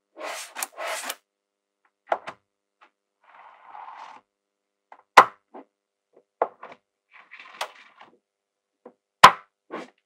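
Small magnetic balls clicking and snapping as strips and sheets of them are pressed together and set down, with short sliding rustles between. Two loud, sharp snaps come about five and nine seconds in.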